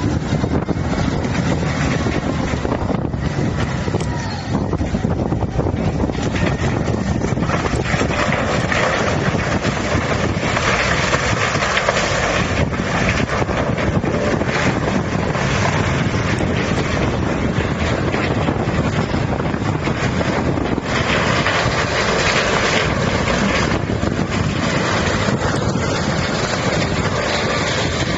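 Tub grinder running, grinding tree stumps and roots: a loud, continuous mechanical drone with rough grinding noise that swells in stretches.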